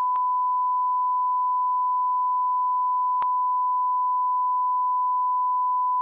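A single unbroken electronic beep: a pure sine tone held at one steady pitch and level throughout, like a bleep or test tone laid on the track in editing. A faint click sounds about three seconds in.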